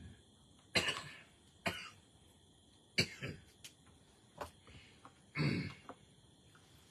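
A man coughing and clearing his throat in about five short bursts spread over several seconds, the last one the longest.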